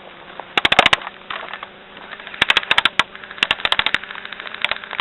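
Airsoft guns firing in three quick bursts of sharp cracks, about a second in, halfway through and a little later, then a single shot near the end.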